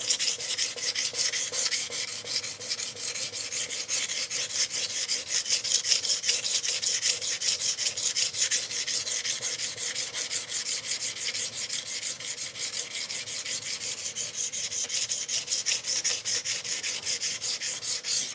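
Steel knife blade (CPM-M4) being stroked rapidly back and forth across a wet 45 micron diamond sharpening plate: a steady, scratchy rasping in quick, even strokes as the coarse diamond grit grinds the bevel and raises swarf.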